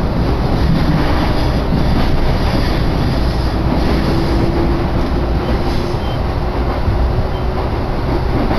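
Running noise heard from inside a JR Nambu Line commuter train car as it travels between stations: a steady rumble of wheels on rails and the moving car.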